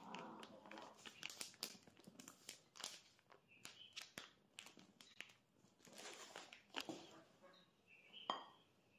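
Faint crinkling of a plastic bag of rice-noodle-roll flour mix and light clicks of a plastic measuring cup as the powder is poured into it. Near the end there is a sharper click as the cup is tipped over a ceramic bowl.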